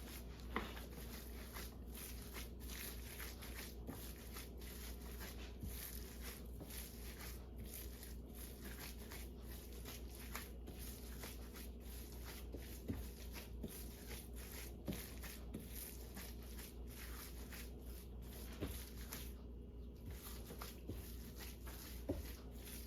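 Faint squishing and occasional soft clicks of hands mixing and kneading raw ground meat mixture in a bowl, over a steady low hum.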